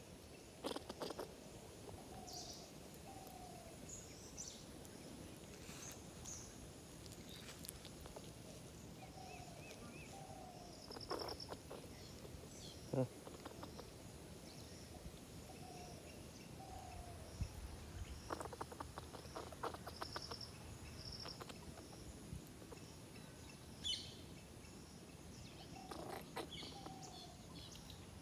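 Faint outdoor ambience with birds calling: a pair of short, slightly falling low notes repeats about every seven seconds, with a few short high trilled notes in between. A run of faint clicks comes about two-thirds of the way through.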